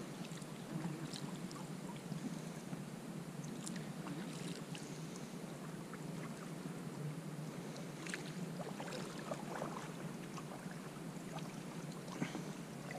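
Faint water sounds around a kayak: scattered small splashes and drips, as from a paddle, over a steady soft hiss.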